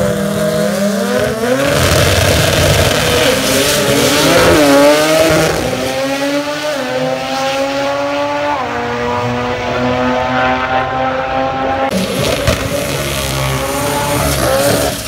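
Drag race car engines revving hard, then one at full throttle accelerating down the strip, its pitch rising, dropping once at a gear change about eight and a half seconds in, and rising again. Near the end, a car revving through a burnout with tyre noise.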